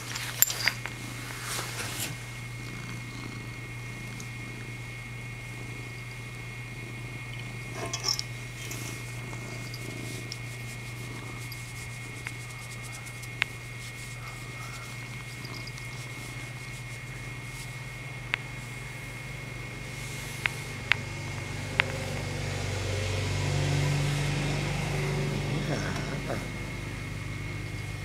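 Domestic cat purring steadily close by, the purr swelling louder about three-quarters of the way through. A few short sharp clicks are heard, the loudest near the start.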